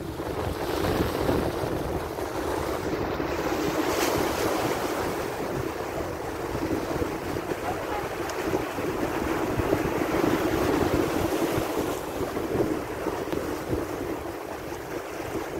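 Sea waves washing and splashing against a rocky shore, swelling and easing, with wind buffeting the microphone. A brief click about four seconds in.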